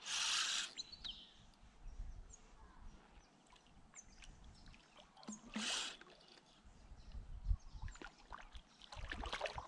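Two brief splashes on the water surface, about five and a half seconds apart, among faint clicks and rustles from a fishing rod and reel being handled.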